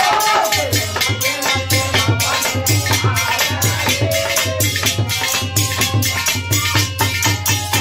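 Live folk bhajan music: a harmonium holding chords, a dholak drum keeping a steady beat, and a chimta (long iron tongs with jingles) clashing in fast, dense strokes. A man's voice sings a phrase near the start and again around the middle.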